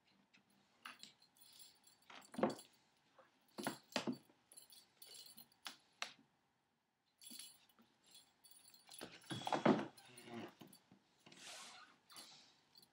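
Cats playing with a feather wand toy on a hardwood floor: scattered knocks, scuffs and jingly rattles of paws, bodies and toy on the boards, with the loudest scuffle about nine seconds in.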